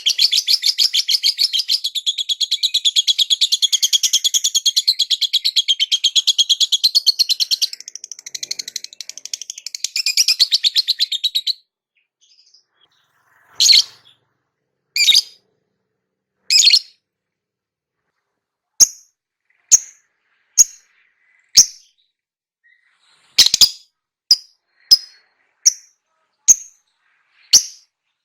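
Lovebird chattering in one long, rapid, unbroken trill for about eleven seconds. It stops, and after a short pause come single sharp chirps: three spaced out, then about one a second near the end.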